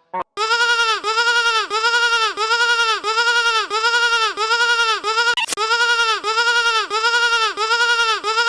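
Cartoon audio run through a 'bleating sheep' sound effect: a held tone made to warble like a bleat, its pitch rising and falling evenly about two and a half times a second. It drops out briefly at the very start and breaks once about five seconds in.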